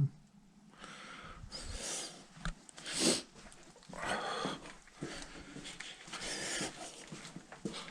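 A person breathing heavily close to the microphone, in slow noisy breaths about every two seconds, with a louder knock or thump about three seconds in.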